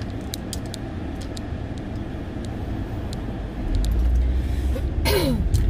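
Car driving along a road, heard from inside the cabin: a steady low rumble of engine and tyres that grows louder about four seconds in. A short rushing sound with a falling tone comes near the end.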